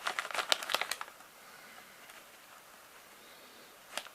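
A teaspoon scooping ground ginger out of its container: a quick run of light clicks and scrapes in the first second, then quiet, with one more click near the end.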